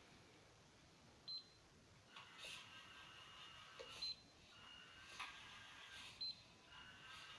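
Faint electronic beeps, three short high ones a couple of seconds apart, with a faint high-pitched whine coming and going between them and a few soft clicks, from the truck's newly changed electronics.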